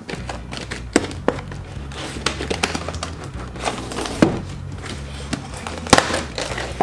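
Toy packaging being handled and opened: a string of sharp plastic clicks and knocks with some crinkling, over quiet background music.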